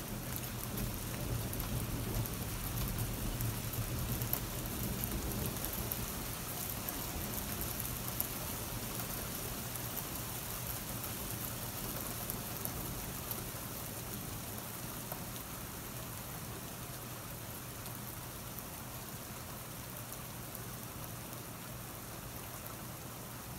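Steady rain falling during a thunderstorm, with a low rumble of distant thunder in the first several seconds that slowly fades.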